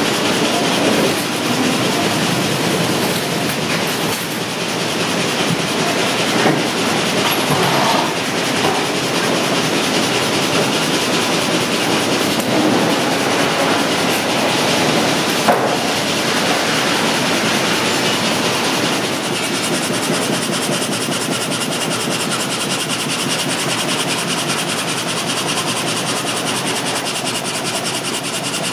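Esterer HDSN frame saw (gang saw) line running steadily and loudly, its infeed conveyors and rollers moving a log into the saw frame. Two sharp knocks stand out, about six and a half and fifteen and a half seconds in.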